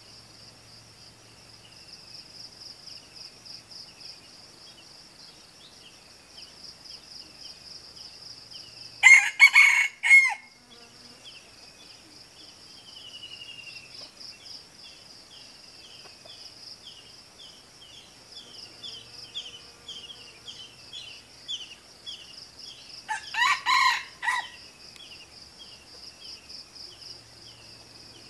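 Red junglefowl rooster crowing twice, each a short clipped crow, the first about nine seconds in and the second about fourteen seconds later. Underneath runs a steady high buzz and rows of quick repeated chirps.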